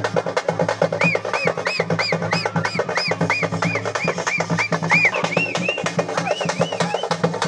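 Procession drums beating a fast, dense rhythm, with a high piping tone in quick rising-and-falling notes over it from about a second in until near the end.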